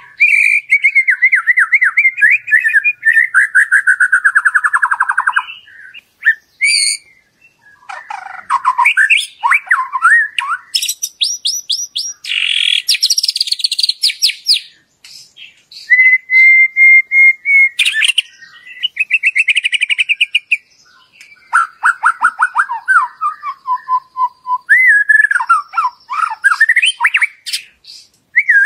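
White-rumped shama (murai batu) singing a long, varied song in phrases separated by short pauses: rapid trills, sweeping whistled notes, a held steady whistle, and a harsher chattering stretch near the middle.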